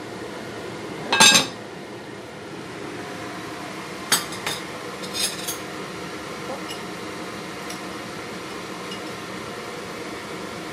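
A pot lid clatters onto a cooking pot about a second in. Then a metal spoon clinks against a ceramic soup bowl a few times as the soup is stirred, over a steady background hum.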